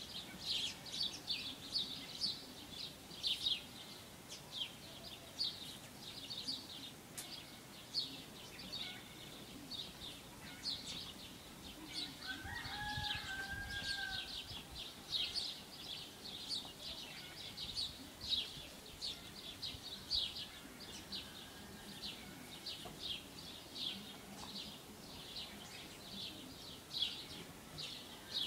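Small animals chirping, a steady run of short high chirps repeated throughout, with one longer call of about two seconds roughly twelve seconds in.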